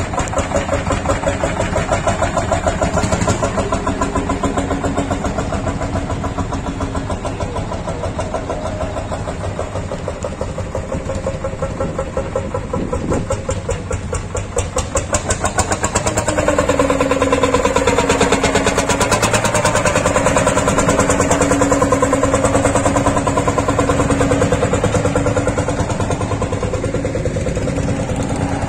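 Old hot-bulb single-cylinder two-stroke tractor engines running with a fast, even chugging. About sixteen seconds in, one tractor's engine comes closer and grows louder.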